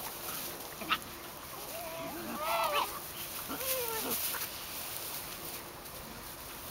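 Swiss Shepherd puppies playing, giving short high whining yelps in two brief bursts, about two seconds in and again around four seconds, with a single tap about a second in.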